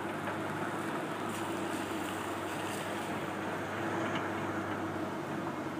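Demolition machinery's diesel engine running steadily, with a low hum and a few faint clinks and scrapes.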